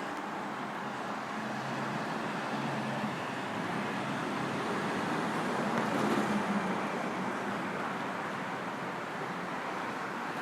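City street traffic: a steady wash of cars and engines, with one vehicle passing close and loudest a little past the middle.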